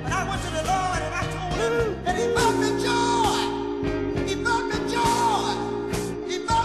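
Gospel music: a voice singing long, sliding notes over a backing band with a steady beat.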